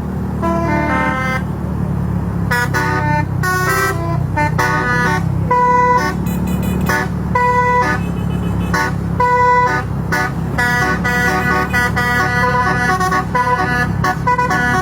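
Basuri 'telolet' musical horn playing a fast tune of short, changing notes, over the steady rumble of an engine.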